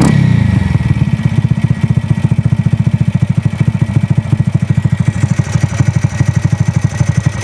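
Aermacchi single-cylinder motorcycle engine running with a fast, even pulse, with a short surge of revs right at the start.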